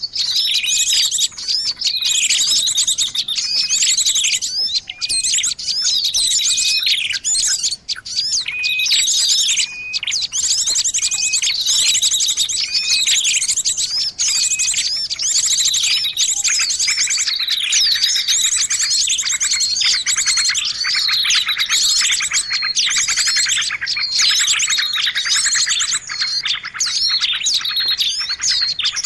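Bird-lure recording of many small songbirds calling at once: a dense, noisy chorus of fast chirps and high trills, growing busier from about halfway.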